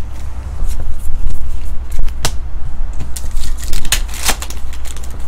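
Trading cards flipped and slid against each other, then a foil trading-card pack wrapper crinkling as it is torn open, loudest about four seconds in.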